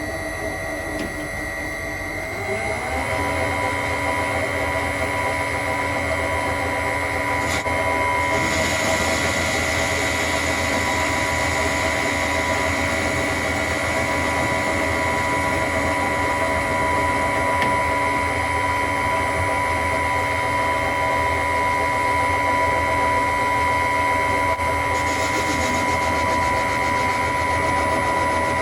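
Myford Super 7 lathe starting about two seconds in, its pitch rising as it comes up to speed, then running steadily with a hum and whine. From about eight seconds in, a hiss of a turning tool cutting an EN8 steel bar joins it and stops a few seconds before the end.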